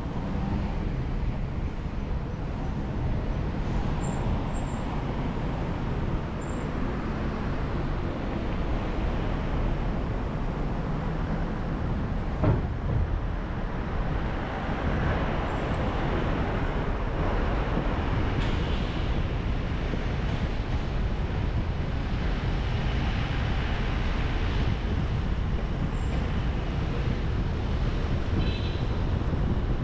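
Steady road and traffic noise from a car driving through city streets, with a single sharp knock about twelve seconds in.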